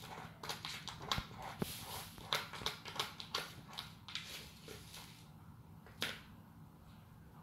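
Cat scratching and digging in granular cat litter in a plastic basin: a quick, irregular run of gritty scrapes that thins out after about four seconds, with one more scrape about six seconds in.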